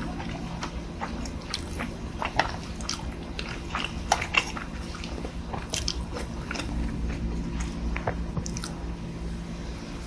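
Close-up eating sounds: a person biting and chewing spoonfuls of food, with scattered short clicks of a metal spoon on bowls and plates. A steady low hum runs underneath.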